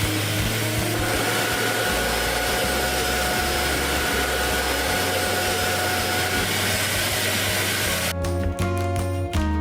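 Steady whooshing hiss of a running power tool over background music; the tool stops abruptly about eight seconds in, leaving plucked guitar music.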